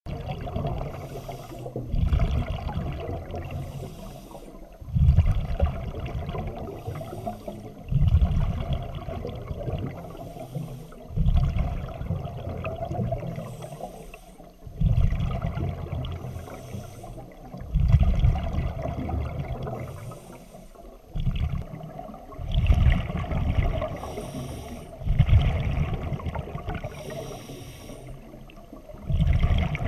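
A diver breathing underwater through a scuba regulator: a rush of exhaled bubbles about every three seconds, with the hiss of the regulator on each inhale in between.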